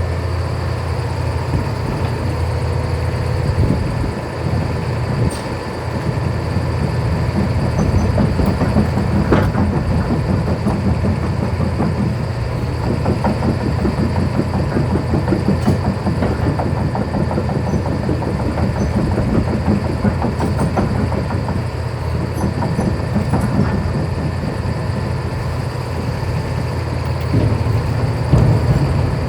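Kobelco SK500 LC-9 excavator working: its diesel engine drones steadily under hydraulic load, with constant rattling and a few sharp metal clanks.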